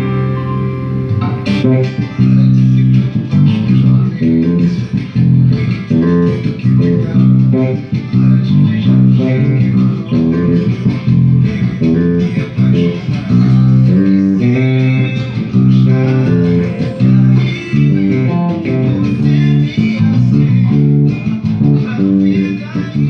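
Freshly restrung stringed instrument played along to a recorded pagode song, with plucked bass-range notes changing throughout.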